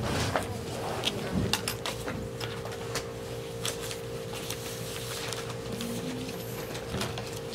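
Whiteboard eraser wiping across a whiteboard in short, irregular rubbing strokes, over a steady electrical hum.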